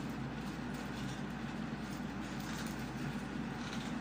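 Steady low hum with a faint hiss: background room noise, with no distinct events.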